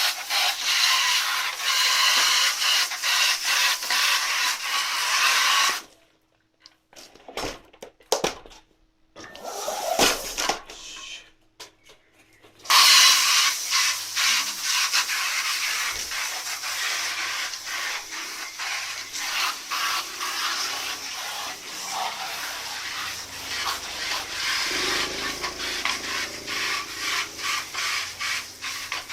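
Rapid scrubbing strokes on a soot-covered fire-box stove as it is cleaned, a dry hissy scraping; it stops for several seconds about six seconds in, with only a few scattered knocks, then resumes.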